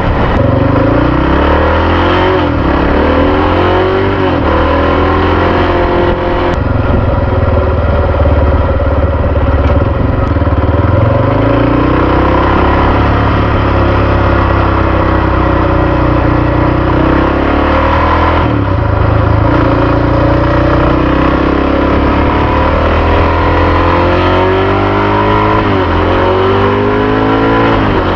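Honda XR650R's 649 cc single-cylinder four-stroke engine pulling on the road. Its pitch rises and then drops back several times as the bike accelerates and is shifted through the gears.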